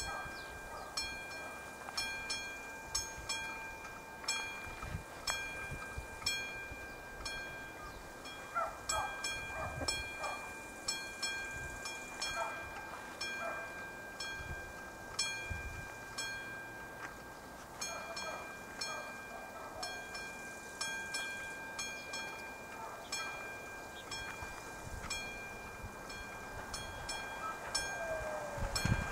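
Classic mechanical level-crossing warning bell ringing in rapid repeated strikes, dropping out for a few seconds now and then, against strong wind on the microphone.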